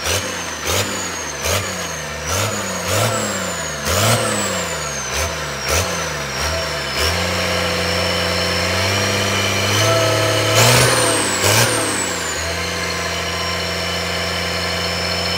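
Cummins diesel engine on a test run, revved in quick throttle blips about once every 0.7 s, each one rising and dropping back. It then holds a steady, faster speed, is revved twice more, and settles to a steady idle.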